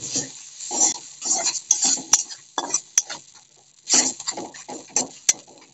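Metal spatula scraping and clanking against a metal kadhai while a thick spice paste is stirred and fried in oil. The strokes are irregular, with a few sharp clinks.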